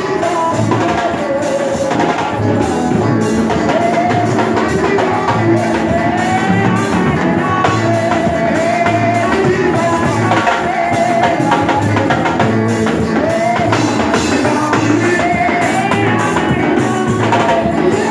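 Live gospel music: singing over drums and other instruments, with a steady beat.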